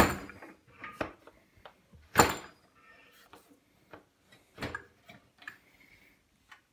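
Wooden knocks and clatter of a board worktop being seated and clamped onto a Workmate bench. A sharp knock comes at the start and another about two seconds in, followed by smaller taps and clicks.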